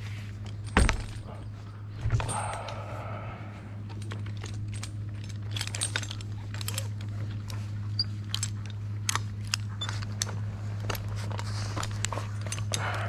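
Metal gear clinking and jangling in many short, irregular clicks, with two louder knocks in the first couple of seconds, over a steady low hum.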